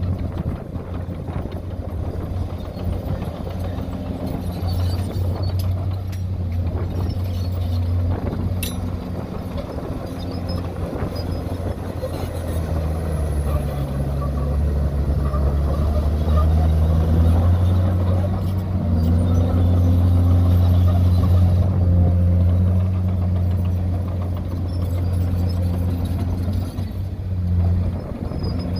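Heavy diesel engine of earthmoving machinery, a bulldozer or dump truck, running steadily, its engine note dipping and rising with load partway through.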